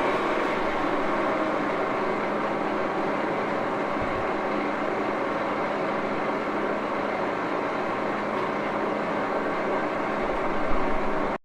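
1941 Axelson gear head engine lathe running steadily, a constant machine noise with a faint steady hum, cutting off suddenly near the end.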